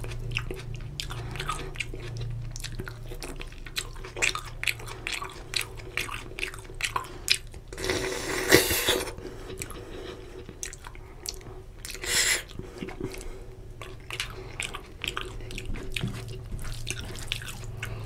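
Close-miked wet chewing and mouth clicks of a person eating mutton curry and rice, with squishing as the rice and gravy are mixed by hand. A louder drawn-out sound about eight seconds in and a shorter one near twelve seconds.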